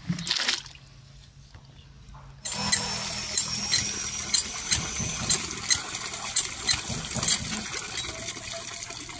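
Bilimbi fruits tipped from a plastic basin into a tub of water with a brief splash. Then, from about two and a half seconds in, an iron lever hand pump is worked, water gushing from its spout into the tub, with a sharp click about twice a second as the handle strokes.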